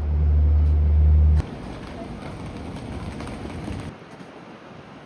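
A loud, deep low hum cuts off suddenly about a second and a half in. It gives way to quieter outdoor city street ambience with a steady wash of distant traffic, which drops a little near the end.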